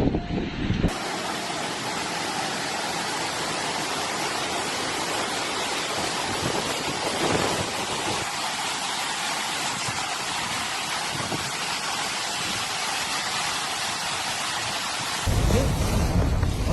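Heavy typhoon rain pouring steadily as an even hiss. Wind buffets the microphone in a low rumble for the first second and again near the end.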